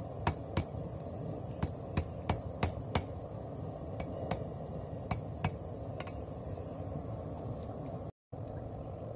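Hand hammer striking a red-hot layered steel billet on the anvil, forge-welding the layers of a 40-layer damascus billet together. About eight sharp blows fall in quick succession over the first three seconds, then a few lighter taps follow, over a steady low rush.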